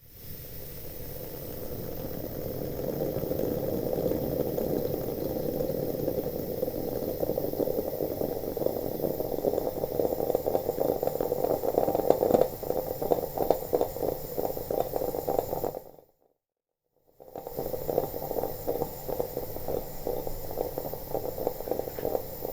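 Liquid bubbling and gurgling steadily in a kitchen pot or vessel, with a dense run of small pops; it stops for about a second some sixteen seconds in, then carries on.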